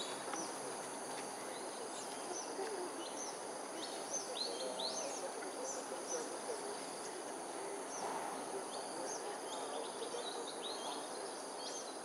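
Steady, high-pitched insect buzzing, with many short high bird chirps coming in quick runs throughout.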